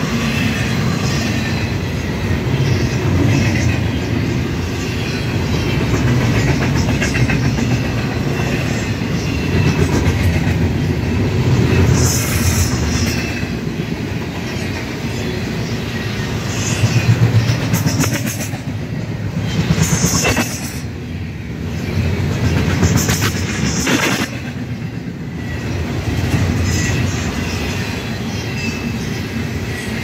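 Double-stack container cars of a freight intermodal train rolling past at close range: a steady rumble with the clickety-clack of wheels over rail joints. Brief high squeals from the wheels break in several times in the second half.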